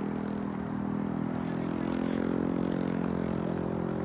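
An engine droning steadily, its pitch drifting slightly about halfway through.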